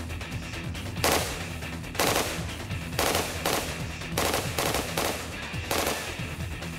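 SIG 552 Commando .223 carbine firing several short bursts of automatic fire, about one burst a second, starting about a second in.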